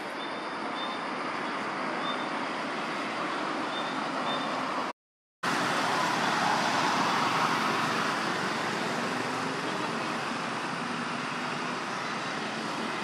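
Steady outdoor background noise, an even hiss with no distinct events, that cuts out completely for about half a second around five seconds in.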